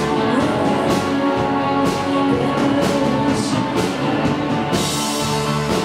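Rock band playing live: guitars holding sustained chords over a drum kit, with regular drum and cymbal hits. A steady high cymbal wash comes in about three-quarters of the way through.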